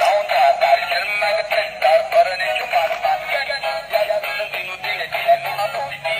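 Music with a synthetic-sounding singing voice carrying a wavering melody.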